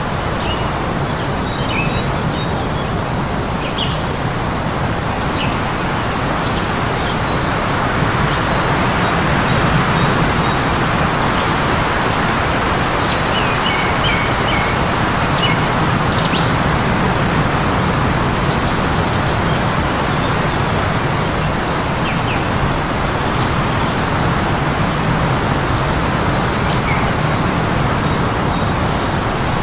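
Heavy wind blowing steadily, with many short bird chirps scattered throughout over the top of it.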